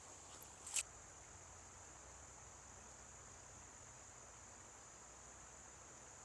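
Faint, steady, high-pitched insect trill, with two small clicks under a second in.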